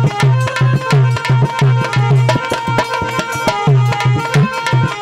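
Instrumental interlude of a folk devotional song: a harmonium holds a melody over a steady hand-drum rhythm whose deep strokes bend in pitch.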